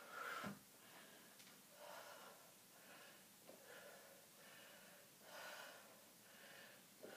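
Faint breathing of a woman exercising, soft breaths roughly once a second, two of them a little louder: just after the start and about five and a half seconds in.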